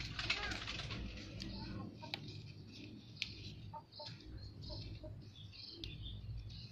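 Birds calling in the background: short scattered chirps, with a couple of sharp clicks about two and three seconds in.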